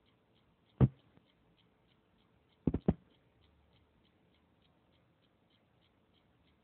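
Faint, even ticking, with one sharp knock about a second in and two quick knocks close together near three seconds.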